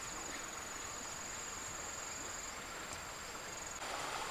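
Steady high-pitched insect trilling over faint forest ambience. Near the end the sound cuts to the rushing hiss of flowing river water, with the insect tone still faintly there.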